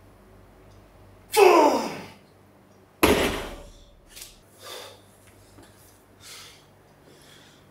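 A loud grunting exhale with a falling pitch at the end of a heavy barbell deadlift. About a second and a half later the loaded barbell with bumper plates lands on the floor with a heavy thud, followed by several hard breaths.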